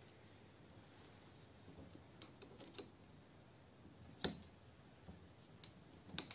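A few scattered small metallic clicks and clinks of a steel wrench and valve collets against a pitbike cylinder head as a valve spring is pressed down by hand and the collets are fitted; the sharpest clink comes about four seconds in.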